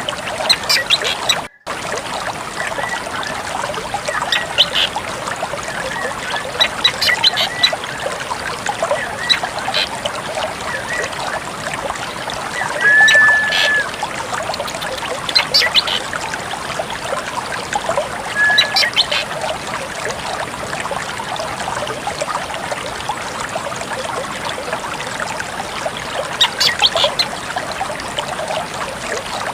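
Drongo calling in short scattered whistles and chips, with a longer held whistle about 13 seconds in and a shorter one near 18 seconds, over a steady trickle of running water. The sound drops out for a moment about a second and a half in.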